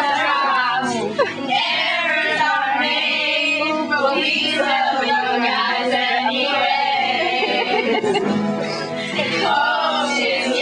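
A group of young women singing a song together.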